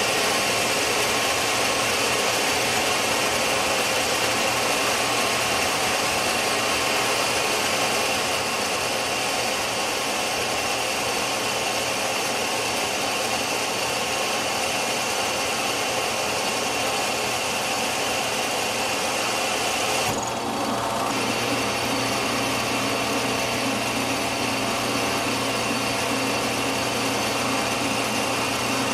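Small benchtop metal lathe running under power while the tool turns down a steel bar held between chuck and live center: a steady motor whine with cutting noise, briefly dipping about two-thirds of the way through.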